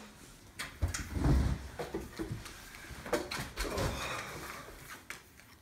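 Playing cards being handled and dealt onto a wooden table: scattered soft knocks and rustles, a few of them with a dull thud.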